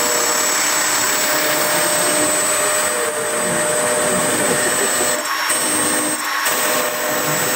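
Router spindle of a homemade CNC machine running at speed, its small end mill cutting through a plastic sheet: a steady, loud motor noise with a high whine, dipping briefly twice about five and six seconds in.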